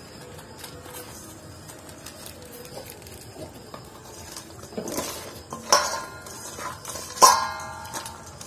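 Pieces of magur catfish being rubbed by hand with turmeric and salt in a stainless steel bowl. From about five seconds in, three knocks against the bowl set it ringing, the last the loudest.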